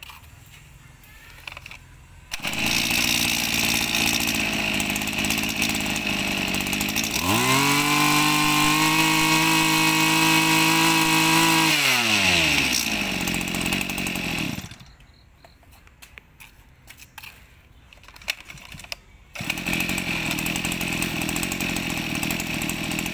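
Two-stroke engine of an Echo 26cc backpack brush cutter running. It comes on and idles, revs up to high speed for about five seconds, then drops back to idle and cuts off. After a few seconds' pause it runs again at idle.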